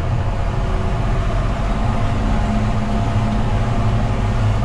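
John Deere 6930 tractor's six-cylinder diesel engine and infinitely variable transmission running under load as the tractor gathers road speed, heard from inside the cab: a steady low drone with a faint transmission whine.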